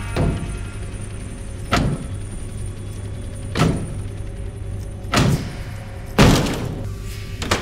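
A series of six heavy thumps, about one every second and a half, each with a short ringing tail, the loudest a little past six seconds in, over a steady low drone.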